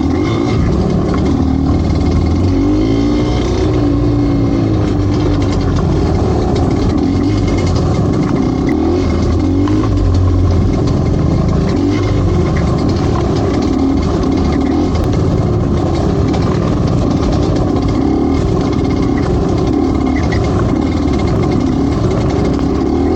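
Motorcycle engine running continuously, its revs rising and falling as it rides.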